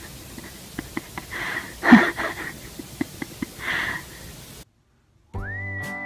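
Close-up snuffling and breathy sniffs with small wet clicks from a white Samoyed-type dog nosing and licking a sleeping man's face. The loudest swell comes about two seconds in. Near the end, after a brief silence, music with a whistled melody begins.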